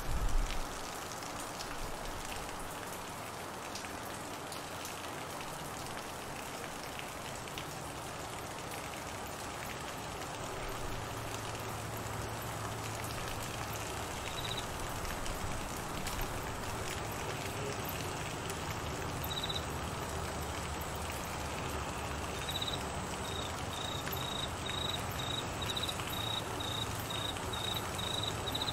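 Steady rain falling on trees, grass and floodwater. About halfway through, a cricket begins chirping with a high, thin pulse, and near the end it settles into about two chirps a second.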